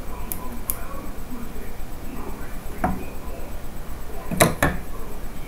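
Small objects being handled: a few faint clicks, then two sharp knocks in quick succession about a second before the end, over a steady background hiss.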